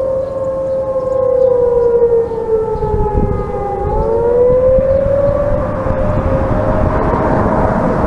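Several outdoor warning sirens sounding together from a distance: a Federal Signal 2T22B, a Federal Signal 2001-SRN*B and A.S.C. T-128s. Their tones sit at different pitches and slowly drift, one gliding down and another rising about four seconds in.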